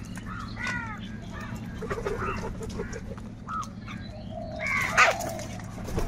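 A flock of house crows calling, a series of harsh caws with the loudest burst about five seconds in, over scattered sharp clicks.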